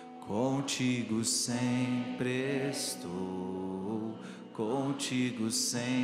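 Slow Portuguese worship song: a singer draws out long, gliding phrases over a steady, sustained instrumental accompaniment.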